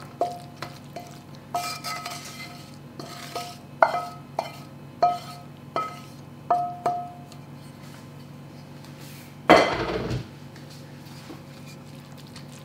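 Wooden spatula scraping and knocking spinach-and-leek mix out of a stainless steel pan into a steel mixing bowl: a string of short, ringing metal clinks. About three-quarters of the way through comes one louder clatter as the pan is put down.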